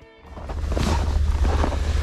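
Wind buffeting the microphone outdoors: a loud, steady low rumble starting just after the beginning, with a few scattered knocks and rustles over it.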